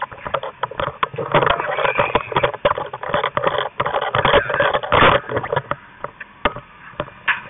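Voices amid repeated knocks and clatter of moving gear, with stretches of rushing noise, quieter near the end.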